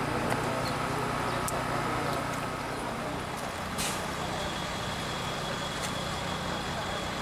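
A steady low engine rumble, like a motor vehicle idling, with one short sharp noise about four seconds in.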